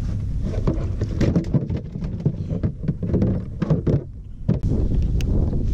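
A redfish thrashing inside a plastic kayak cooler while its lid is held shut: a rapid, irregular run of thumps and knocks, thinning out near the end.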